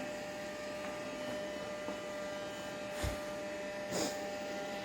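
Roomba robot vacuum running with a steady hum. There is a soft thump about three seconds in and a short scuff about a second later.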